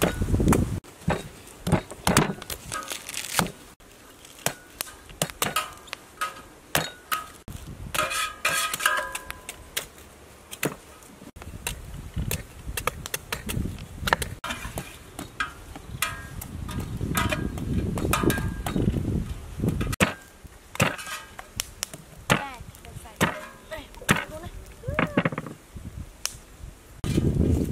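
Large knives chopping into green coconuts: irregular sharp chops through the husk and shell, one after another.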